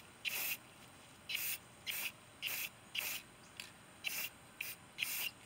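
Aerosol can of Rust-Oleum spray paint being sprayed in short hissing spurts, about eight of them, roughly two a second.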